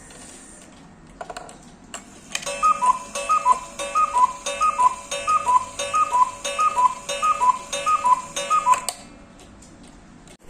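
Cuckoo clock calling: its paper bellows sound a two-note cuckoo, high note then low, repeated about every 0.7 s for some six seconds over the clock's ticking. A few mechanical clicks come just before the calls start, as the bird is pushed out and opens the door.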